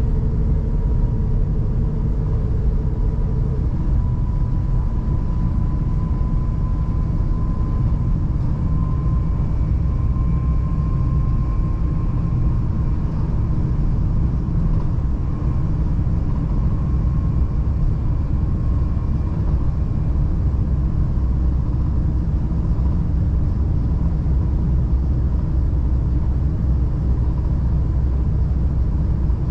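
S-Bahn train running at speed, heard from inside the carriage: a steady low rumble of wheels on rails, with a faint thin whine that rises slightly in pitch over the first dozen seconds and then fades.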